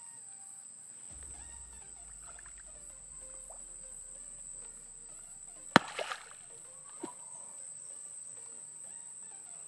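Night insects trilling steadily in a high, unbroken drone, with one sharp loud knock about six seconds in, a short scuffle after it, and a smaller click a second later.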